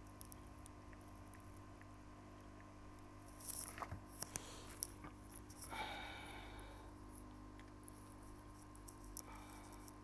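Faint clicks, then a short squeak about halfway through, from a metal tool scraping and prying at the metal shield on an iPhone 5s logic board. A steady low hum runs underneath.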